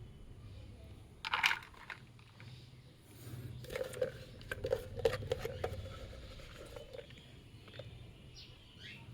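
Handling noises while soft food is set out for cockatiel chicks: a brief scraping rasp, then a run of small clicks and knocks, with a short rising squeak near the end.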